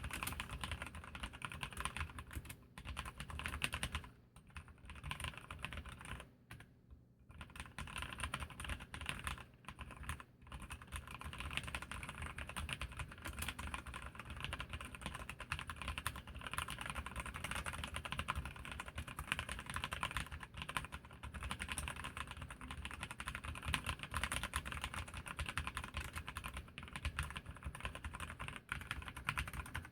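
Continuous fast typing on an Archon mechanical keyboard with Kailh Red linear switches: a dense stream of keystroke clacks broken by a few short pauses, stopping at the very end.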